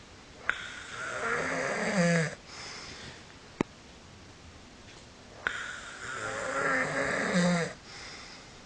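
A person snoring: two loud snores about five seconds apart. Each is a rough, fluttering in-breath of about two seconds followed by a softer breath out, with a short click between the two.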